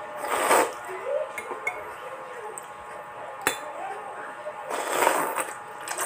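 Noodles being slurped noisily off a spoon and fork, twice: about half a second in and again about five seconds in. Between the slurps, metal cutlery clinks and taps against the ceramic bowl, with one sharp clink a little past the middle.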